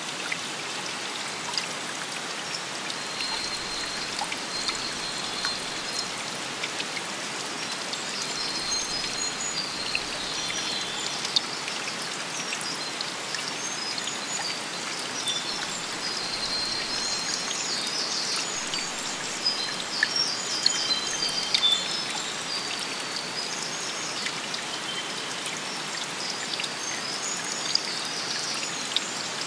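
Flowing stream water with dripping, and birds chirping high above it throughout.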